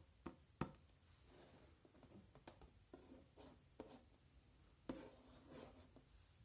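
A toy set's box being handled: scattered light clicks and taps with soft rubbing between them. The sharpest click comes under a second in, and another comes near five seconds in.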